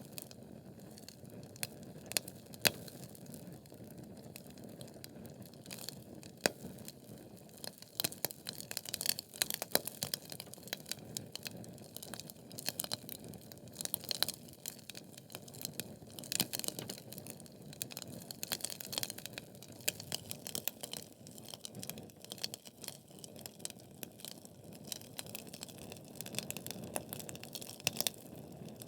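Wood fire burning logs in a fireplace, with a steady low hiss and continual irregular crackling and sharp pops.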